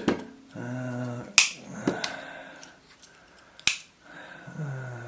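Sharp metallic clicks of a Dutch military pocket knife's tools snapping open and shut on their spring: three clicks, one at the start, one about a second and a half in, one near four seconds.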